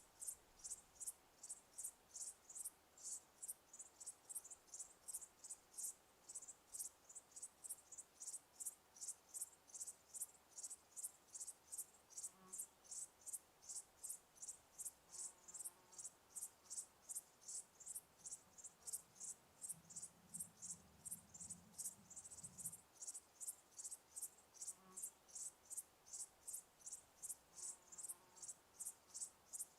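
Crickets chirping in a steady, even rhythm of high-pitched chirps, about three a second. A brief low hum joins for a few seconds about two-thirds of the way through.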